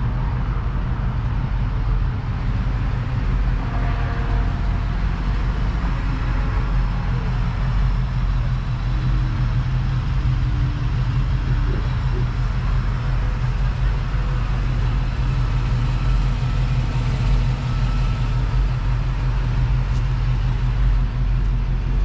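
A motor vehicle running steadily with a deep, even rumble and no revving, with faint voices in the background.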